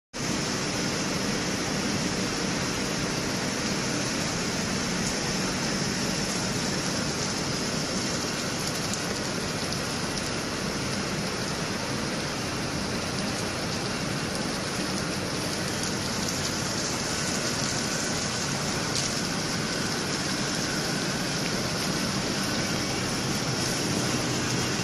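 Steady rushing noise of jet dyeing machines running on a dye-house floor, their pumps circulating the dye liquor, with a faint low mechanical hum beneath.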